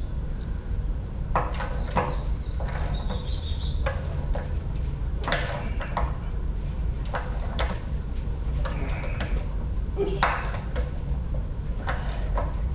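Irregular metal clinks and knocks, some ringing briefly, over a steady low hum: metal tools and fittings being handled during plumbing work.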